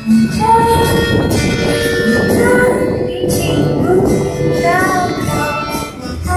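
Music: a high voice singing long, wavering held notes over instrumental accompaniment.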